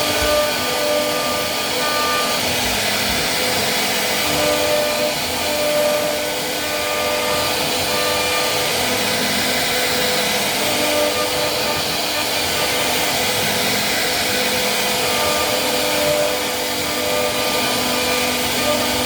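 CNC wood router running and carving wood: a steady machine noise with a whine that shifts slightly in pitch from time to time.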